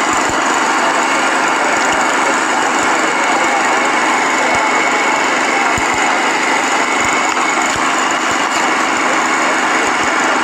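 Heavy machinery engine, an excavator used to dig through rubble, running steadily with no change in loudness.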